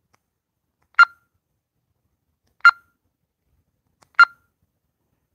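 Three short, identical electronic beeps, each a single pitch with overtones, spaced about one and a half seconds apart.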